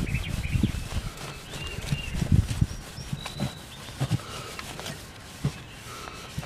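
A cloth rag rubbing back and forth over an acoustic guitar's spruce top, buffing off polishing compound, in uneven strokes that ease off after the first few seconds. Birds chirp in the background.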